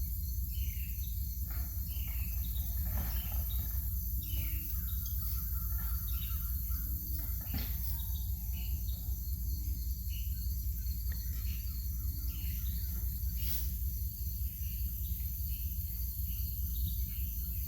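Outdoor ambience of birds chirping with short scattered calls over insects trilling in a steady pulsing chorus, with a steady low rumble underneath.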